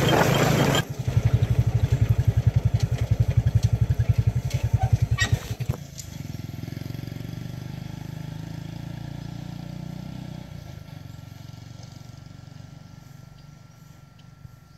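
Small motorbike engine carrying the ride. It runs loud with wind noise for about a second, then puts rapidly at low revs for about five seconds as the vehicle slows, then settles to a quieter steady hum that fades near the end.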